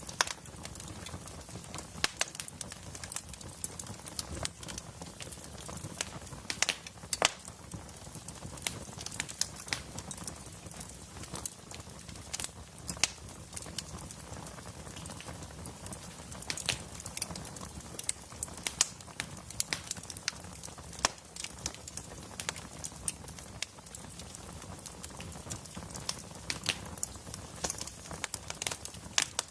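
Wood fire in a fireplace crackling: irregular sharp pops and snaps, several a second, over a steady low hiss of burning logs.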